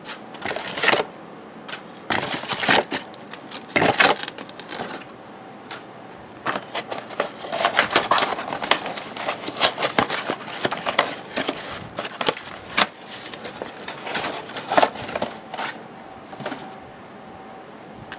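Trading-card packs being handled: wrappers rustling and crackling in irregular bursts as they are torn open, with cards shuffled.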